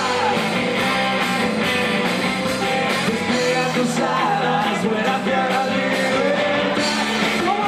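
Live rock band playing: a singer over electric guitars, bass and a drum kit, cutting in suddenly at the start.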